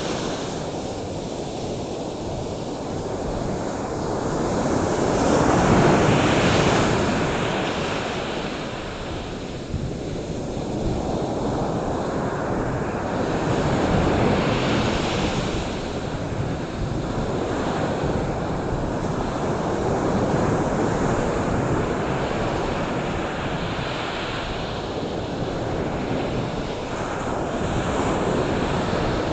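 Ocean surf: waves washing in, the rushing noise swelling and easing every several seconds.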